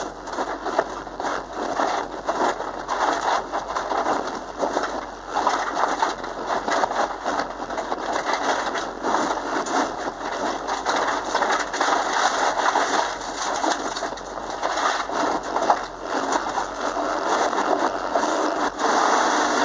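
Loose gravel and dirt crunching under the tyres and stones rattling against the underside of a Subaru Impreza, heard from inside the cabin at speed. It is a constant gritty clatter that swells and fades, with no clear engine note standing out.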